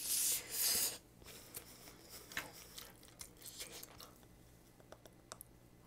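Close-up chewing and crunching of crispy scorched fried rice (nurungji), heard as scattered small crackles and clicks. Two short, loud airy rushes of noise come in the first second.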